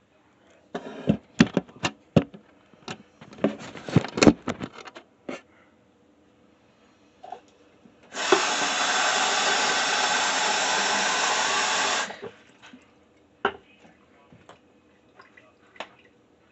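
A run of knocks and clatter from small objects being handled, then a bathroom sink faucet running steadily for about four seconds, starting and stopping abruptly.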